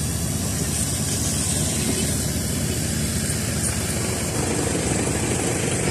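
A 4x4 off-road vehicle's engine running steadily, heard from inside the cab.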